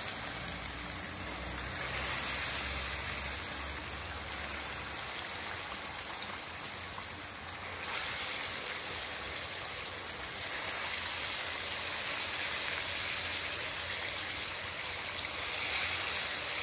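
Pieces of cod frying in hot oil, a steady sizzle.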